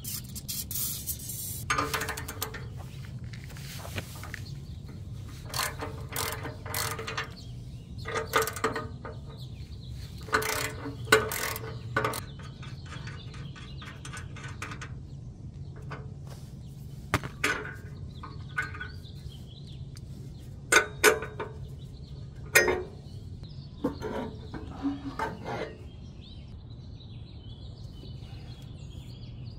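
Socket ratchet clicking in short runs and metal clanks as the bolts holding a Subaru Outback's rear muffler are undone and the muffler is worked free of its rubber hangers, over a steady low hum. The clicking stops a few seconds before the end.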